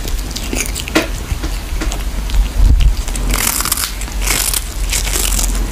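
Irregular crunching and crackling, a quick uneven run of crisp strokes.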